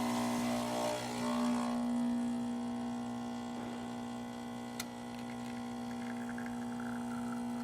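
Pasquini Livia 90 espresso machine's vibratory pump humming steadily as it pulls a test shot, with a single sharp click about five seconds in.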